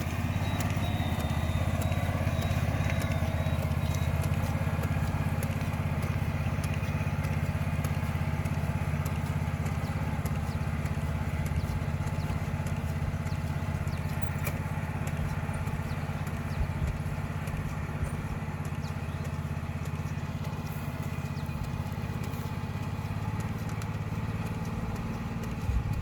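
Small engine of a rice transplanter running steadily at a constant speed, with faint ticking from the machine.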